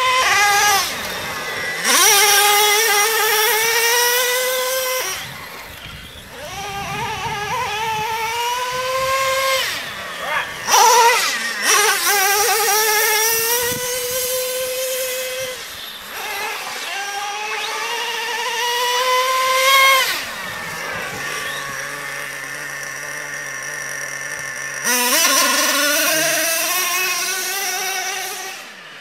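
Nitro RC truck engine revving high in repeated climbing passes, cutting back between them. For a few seconds past the middle it settles to a steadier, lower running note.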